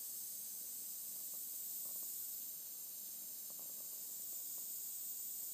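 Steady hiss of compressed air during a 40 psi pressure test of a Ford 351 Cleveland cylinder head, with a few faint pops of air bubbling out through a leaking steel core plug, the source of water getting into the oil.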